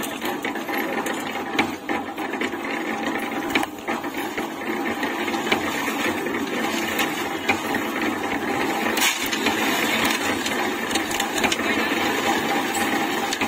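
Half-bag tilting-drum concrete mixer running on its 2 HP single-phase electric motor: a steady mechanical running sound as the drum turns, with scattered clicks and knocks from the mix tumbling inside.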